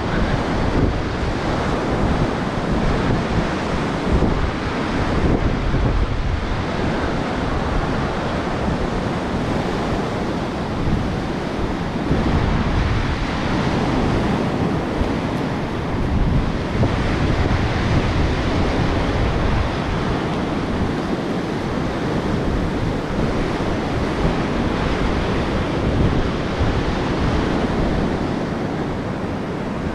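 Sea surf washing onto a sandy beach, with wind buffeting the microphone.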